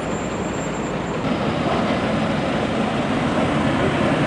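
Road traffic noise: vehicles passing on a city street, a steady noise that gets a little louder about a second in.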